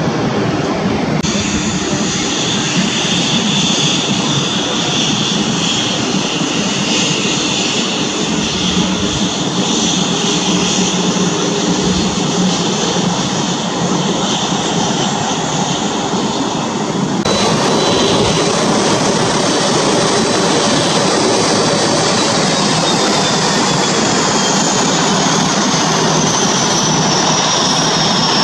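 Jet airliner engines running as airliners climb out and taxi, the sound changing abruptly twice. In the last part a Boeing 737-800 taxis with its engines running, and a high whine slowly falls in pitch.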